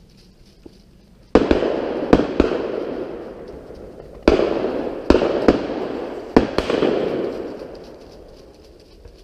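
Shotguns firing at driven pheasants: about eight shots in three quick volleys, each bang followed by a long fading echo.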